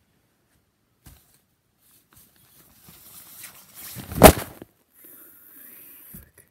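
Fabric rustling as clothes are handled and folded, with one loud thump on or near the microphone about four seconds in.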